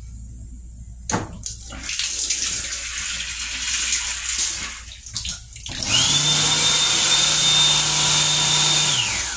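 A train-restroom sink faucet runs water into the basin for a few seconds. Then an electric motor starts with a steady hum and high whine, louder than the water, and winds down in pitch after about three seconds.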